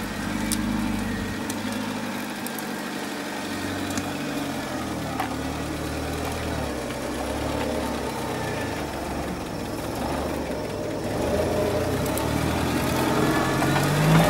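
UAZ-469 off-roader's engine running at low revs as it crawls over rough, muddy ground, its pitch rising and falling a little with the throttle. It grows louder near the end as the vehicle comes close.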